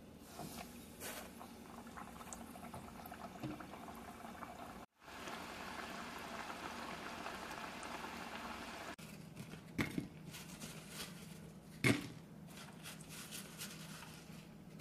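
Cut potato strips deep-frying in a small saucepan of oil: a steady bubbling sizzle. Before it, fainter crackling as a wooden stick tests the hot oil; afterwards a few sharp knocks, the loudest near the end.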